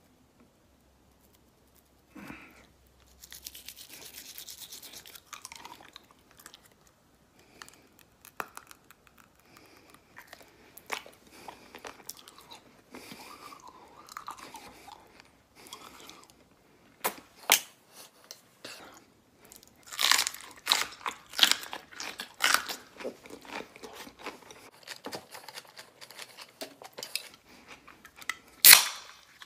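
Toothbrush scrubbing teeth loaded with wasabi toothpaste: an uneven run of wet scrapes and mouth noises that grows louder about two-thirds of the way in, ending in one short, loud burst.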